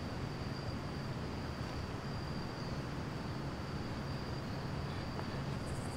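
Steady outdoor night ambience: an even hiss over a low hum, with a thin, high, steady tone running through it.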